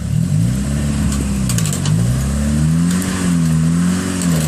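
Jeep Cherokee XJ engine revving up and down in repeated surges under load as it tries to climb a rock ledge, with a few short clicks.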